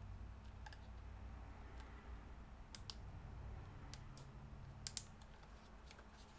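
Faint, scattered clicks and light taps of laptop parts and tools being handled during internal hardware work, over a low steady hum.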